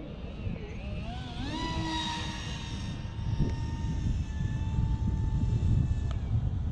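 Electric motor of a scratch-built foam RC jet whining in flight: the pitch wavers, rises about a second in as it spools up or passes, then holds steady and slowly drops. Low wind rumble on the microphone underneath.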